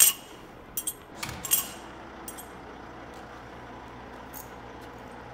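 A few sharp metallic clinks and taps, the loudest right at the start and about a second and a half in, over a steady low engine hum.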